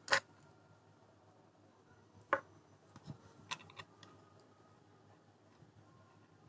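A few sharp clicks and taps from handling the embroidery hoop and cloth: the loudest right as it begins, another a little over two seconds in, and a quick cluster of three about a second later, over faint room hiss.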